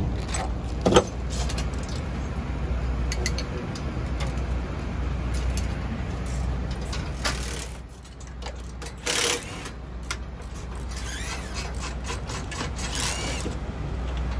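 Pit-area background: a steady low hum with scattered metallic clicks and clinks from mechanics working on a motorcycle engine.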